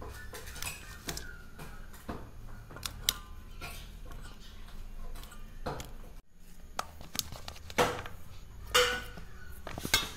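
A knife and guava pieces clinking and knocking on stainless steel plates while guava slices are cut and their cores dropped into a plate. Irregular light clinks, with a few louder knocks in the second half.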